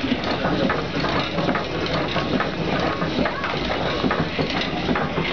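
Steam donkey engine (logging winch) running, with a steady busy clatter and rattle from its moving parts and gearing.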